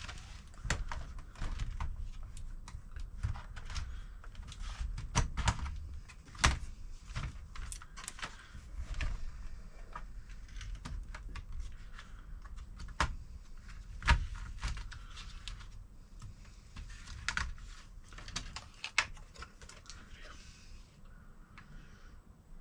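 Irregular clicks and taps of hands working on a laptop, with keyboard-like key presses and plastic knocks, a few louder than the rest.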